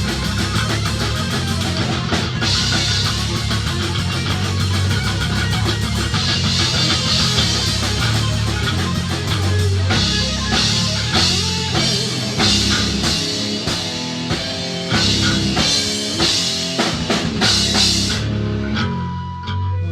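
Heavy rock band playing live: electric guitar and drum kit over steady low bass notes.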